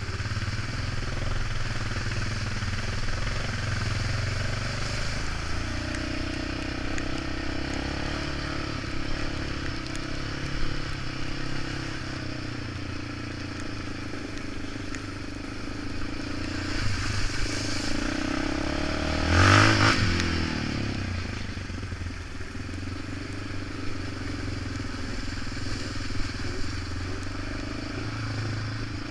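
Off-road vehicle engine running under way along a muddy trail, its pitch rising and falling with the throttle, with a brief louder surge a little past two-thirds of the way through.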